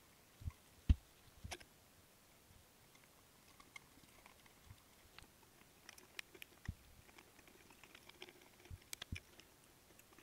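An M3 hand tap turned in a T-handle holder, cutting threads into a thin steel plate: faint scattered clicks and ticks of the tap biting and chips breaking, with a few short knocks, the loudest about a second in.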